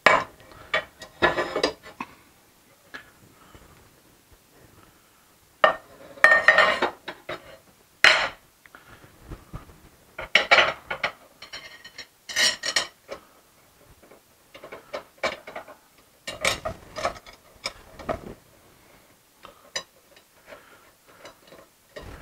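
Aluminium frame rails and small screws of a laser engraver kit being handled and fitted together on a table: irregular metal clinks, knocks and rattles, some in quick clusters with short pauses between.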